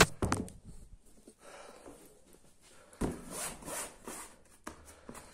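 A sharp knock, then a hand rubbing and pressing the taut fabric of a Quechua camp bed, a rasping rub lasting about a second starting around three seconds in.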